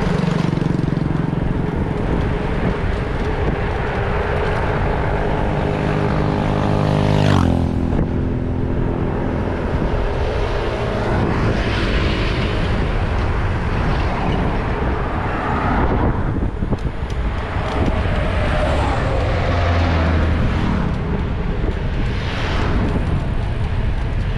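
Wind rumbling on the microphone of a camera riding along on a bicycle, with motorbike engines passing on the road; one engine's drone ends abruptly about seven seconds in, and another is heard near the end.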